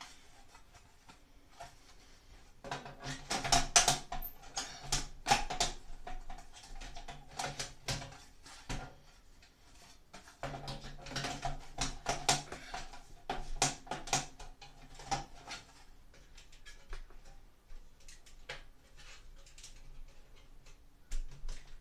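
Plastic grille cover of a Broan 655 bathroom heater/fan/light being handled and worked onto the ceiling housing: irregular clicks, taps and scrapes of plastic against the housing. A low steady hum comes in twice under the clicking for several seconds at a time.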